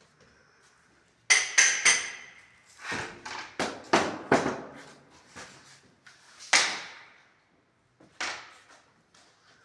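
Old baseboards or door woodwork being knocked and pried off with hand tools. Sharp knocks and clattering start about a second in with three strikes that ring like metal, then a quick run of knocks, one more loud knock past the middle and a smaller one near the end.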